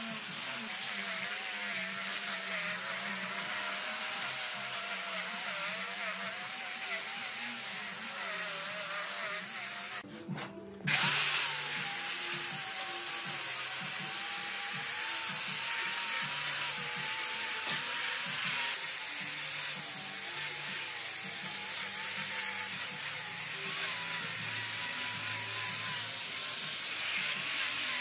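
Electric angle grinder fitted with a sanding pad, running and sanding a wooden tabletop, its motor whine wavering as it is pressed against the wood. The sound drops out for about a second about ten seconds in. Soft background music plays underneath.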